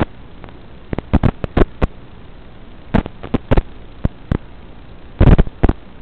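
Steady hiss from an analog FPV video receiver's audio channel, broken by sharp crackles and pops: several in quick succession about a second in, a few more around three and four seconds, and a denser burst near the end. The crackles go with breakup of the analog video link.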